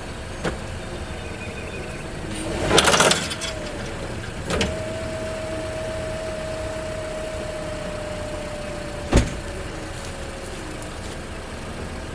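Toyota Corolla's engine running as the car is backed up against a chain to pull its bent front frame straight. A loud noisy burst comes about three seconds in, a steady whine follows for several seconds, and there is a sharp knock about nine seconds in.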